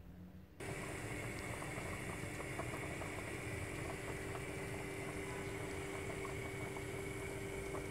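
Tomato sauce simmering in a pot of meatballs on a gas stove, bubbling with many small pops over a steady hum. It starts abruptly just after the start and keeps up evenly.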